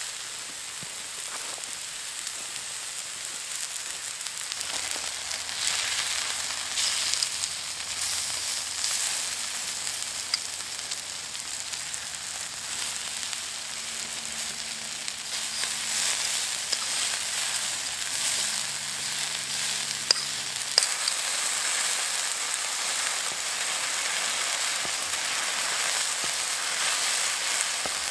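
Sirloin steak, chicken, peppers and onions sizzling on a hot oiled cooking stone, a steady frying hiss as the steak sears. Two sharp clicks about two-thirds of the way through.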